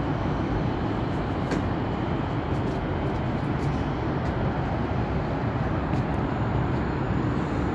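Steady outdoor rumble with a light hiss, heaviest in the low range and with no distinct events, typical of the air and distant traffic heard from high above a city.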